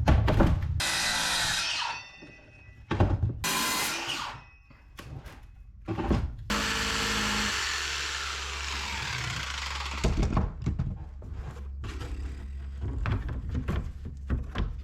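Jigsaw cutting the corners of an acrylic sheet, running in bursts: about two seconds, a short burst, then a longer run of a few seconds. Knocks and handling follow near the end.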